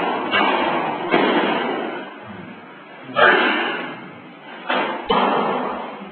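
Explosive foot stamps on a concrete floor from a Chen-style taiji cannon fist (paochuan) form: five sudden heavy thuds, about a third of a second, one, three, four and three-quarters, and five seconds in, each trailing off in a long echo.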